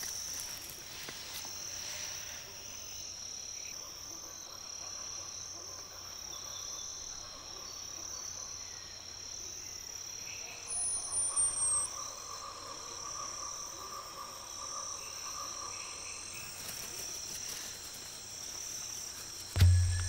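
Rainforest insects droning steadily at a high pitch, with frog-like croaking mixed in. Near the middle a brief, very high whistle sounds once, falling slightly in pitch.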